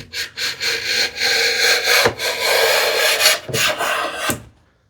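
Freshly sharpened hand plane taking a single end-to-end shaving along the edge of a solid cherry panel: a continuous hissing cut lasting about four seconds that stops shortly before the end.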